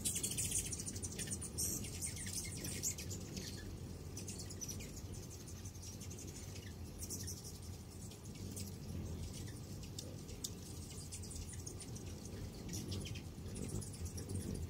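A crowd of hummingbirds at feeders: rapid, high-pitched chips and twittering, busiest in the first second or two and again around the middle, over a steady low hum.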